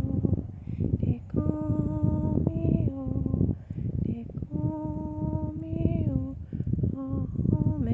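A woman humming a slow, wordless tune of long held notes, each sliding down in pitch at its end. Under it runs a steady low rumbling noise with small crackles.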